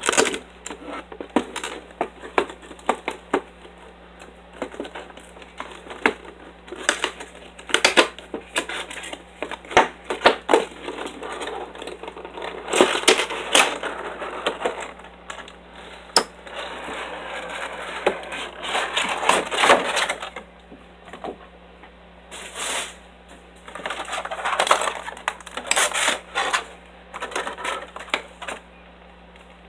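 Stiff plastic clamshell blister packaging being handled and pried open by hand: irregular clicks and several longer stretches of crinkling plastic.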